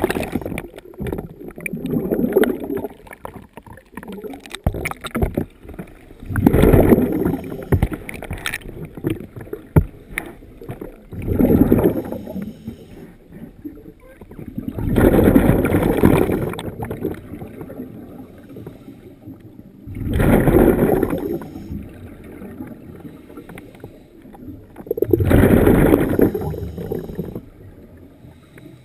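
Scuba diver breathing through a regulator, heard underwater: a rushing burst of exhaled bubbles comes about every four to five seconds, six times in all, with quieter noise between.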